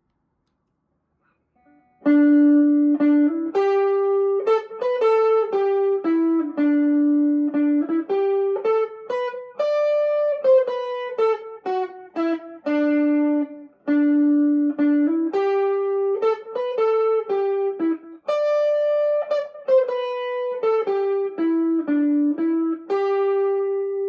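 PRS SE McCarty 594 Singlecut electric guitar played through a Wampler Tumnus overdrive, Electro-Harmonix Memory Toy delay and Fender Champion 600 amp. It plays a slow melody of single notes, many of them held, starting about two seconds in.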